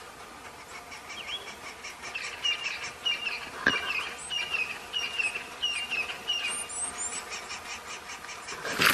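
A bird calling a short chirping note over and over, about two a second, over faint high insect-like ticking. There is a single sharp knock partway through and a short loud burst of noise at the very end.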